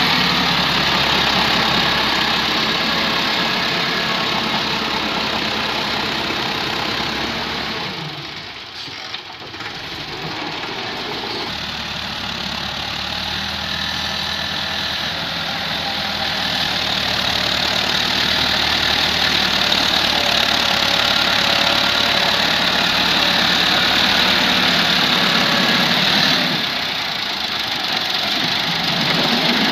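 Massey Ferguson tractor diesel engines running as they push earth with a front blade. The sound dips briefly about eight seconds in and shifts again near the end, as one clip gives way to another.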